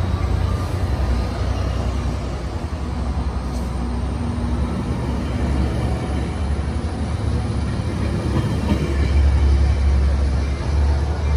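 Tri-Rail bilevel passenger coaches rolling past on the rails, a steady low rumble that swells near the end as the last car clears.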